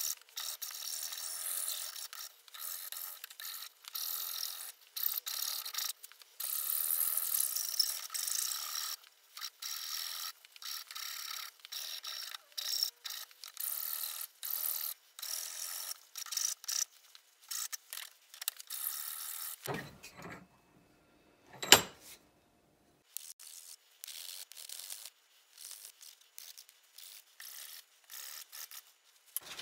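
Hand file rasping across the wood of a cutting-board handle in rapid back-and-forth strokes. About two-thirds of the way through the strokes stop briefly and a single sharp click sounds. The strokes then resume more softly.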